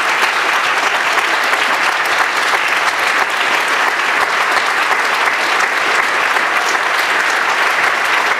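A large audience applauding steadily at the end of a lecture: sustained, dense clapping from a full hall.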